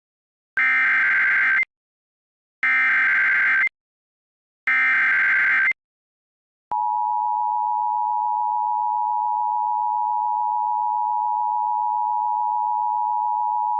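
Emergency Alert System tones. Three one-second digital data bursts of the SAME header, here coding a tornado warning, come a second apart. About a second later the steady two-tone EAS attention signal (853 and 960 Hz together) starts.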